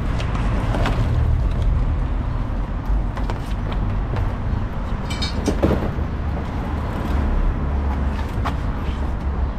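Cardboard shipping crate being torn open and handled, with scattered knocks and scrapes and one brief high squeak, over a steady low rumble of street traffic.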